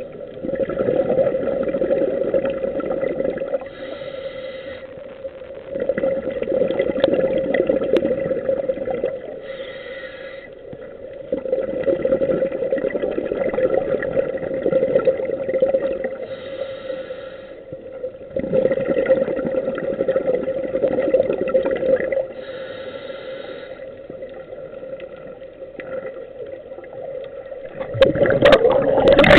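Scuba diver breathing through a regulator underwater. A short hiss of inhalation comes four times, each followed by a few seconds of exhaled bubbles gurgling out. A louder rush of bubbles and water comes near the end.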